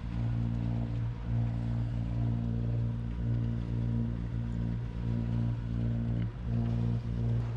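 A sailboat's inboard diesel engine running steadily at constant speed, a low, even drone while motoring.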